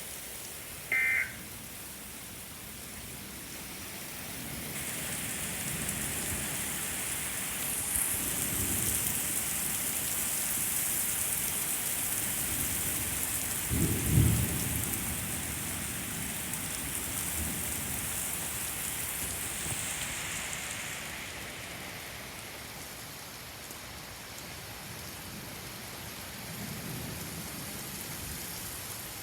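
Thunderstorm: heavy rain pouring, growing heavier about five seconds in and easing off after about twenty seconds, with rolls of thunder. The loudest thunder comes about fourteen seconds in and a fainter rumble near the end. A short beep sounds about a second in.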